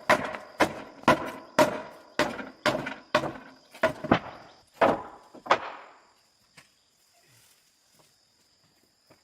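Repeated hard blows, about two a second, each with a short ringing decay, stopping about six seconds in. This fits demolition work of striking or chopping at a structure.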